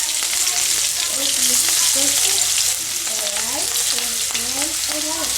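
Spice-coated shrimp sizzling as they shallow-fry in a small amount of hot oil in a pan: a steady frying hiss.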